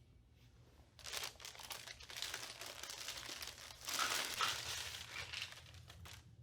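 Crinkling, crumpling noise made of many small crackles. It starts about a second in, peaks around the four-second mark, and stops abruptly.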